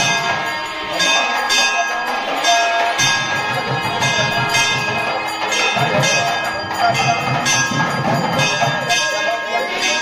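Temple bells ringing in steady repeated strokes, about two a second, with a ringing tone sustained between the strokes.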